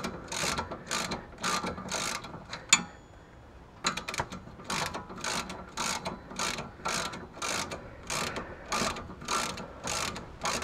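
Socket ratchet wrench clicking in steady back-and-forth strokes, about two a second, on a sway bar end link nut. A little under three seconds in comes a single sharp metallic clink, followed by a pause of about a second, and then the strokes resume.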